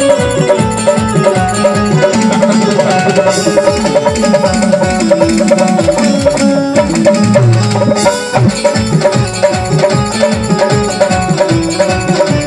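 Instrumental break of a bhajan: an Indian banjo (bulbul tarang) plays a fast plucked melody over keyboard and a steady drum beat.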